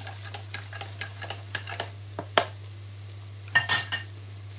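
A spoon clicking and clinking against a plastic measuring jug while liquid stock is stirred, a few light clicks a second. Near the end comes a louder clatter of cutlery. A low steady hum runs underneath.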